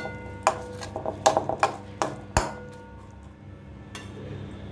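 A metal spatula scrapes and clinks against a cooking pan as chopped onion, tomato and spices are stirred together. There is a quick run of scrapes and knocks in the first couple of seconds, then one more tap near the end.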